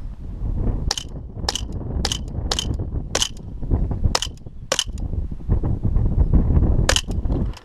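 RWA 1911 Knight Hawk airsoft pistol running on CO2 firing single shots, about eight sharp cracks at uneven intervals, over a steady low rumble.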